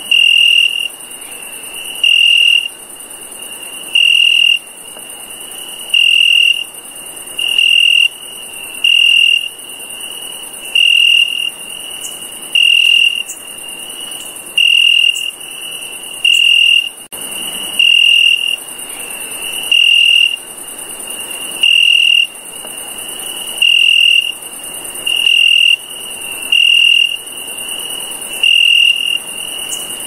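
A cricket chirping: short trills at one steady high pitch, repeating about every one and a half to two seconds, over a constant high hiss.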